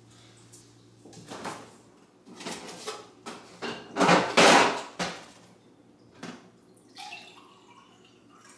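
Kitchen handling sounds: a refrigerator door opened and a plastic water pitcher lifted out, then water poured into a ceramic mug. The loudest is a rush of noise lasting about a second, about four seconds in.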